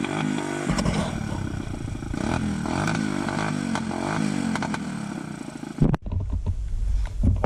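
Motorcycle engine running with its revs surging up and down unevenly. The riders trace the fault to a clogged fuel filter and carburettor. The engine sound cuts off about six seconds in, leaving a low rumble and a few clicks.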